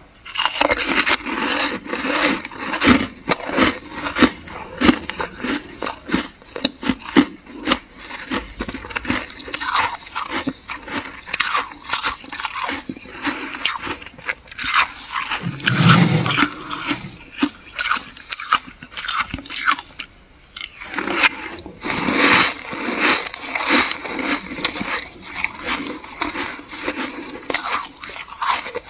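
Dry, flaky freezer frost crunching as it is scraped up and bitten: a long run of crisp crunches and crackles, with a short lull about two-thirds of the way through.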